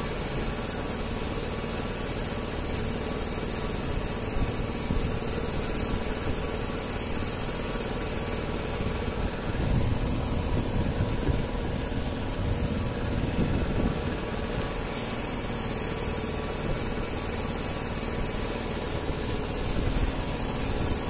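A boat's engine idling steadily, with a low rumble of water and wind that grows louder between about ten and fourteen seconds in.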